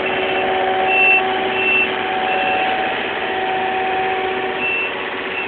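Diesel engine of a Takeuchi TL240 compact track loader running steadily, with a reversing alarm sounding in short high beeps that pause midway and return near the end.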